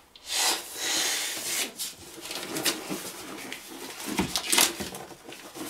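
A long breath blown into a glove to inflate it as a makeshift balloon, followed by rustling and a few short clicks as the glove is handled.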